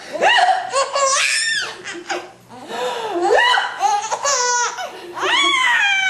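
Baby laughing in high-pitched, squealing bouts, three of them with short breaths between.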